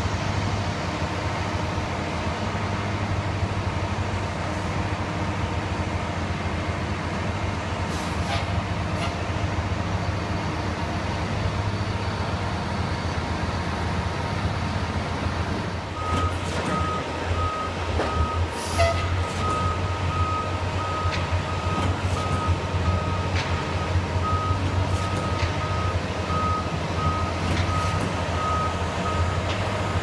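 Concrete pump and ready-mix truck engines running steadily at a construction site, with a few scattered clanks. About halfway through a truck's reversing beeper starts and keeps beeping about once a second.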